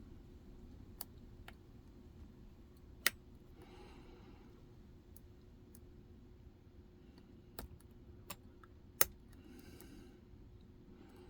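A steel lock pick and pry-bar tension tool working in a Medeco pin-tumbler cylinder: scattered sharp metallic clicks, two of them much louder and about six seconds apart, with brief soft scratching of the pick between, over a faint steady hum.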